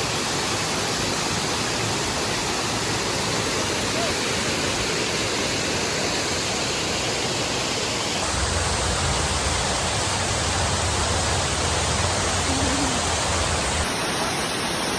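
Waterfall: a loud, steady rush of falling water with no pattern to it. The sound changes abruptly twice, and in the middle stretch a heavier low rumble joins it.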